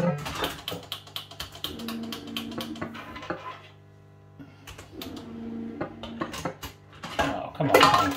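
JPM Hot Pot Deluxe fruit machine: a fast run of clicks over steady electronic tones as a win counts up into the credits, a short lull, then more clicks and a louder flurry of clicks and machine tones near the end.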